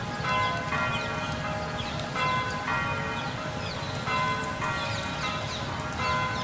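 Church bells ringing in a tower: a run of strikes at several different pitches, one roughly every half second, each ringing on into the next, over a steady low rumble.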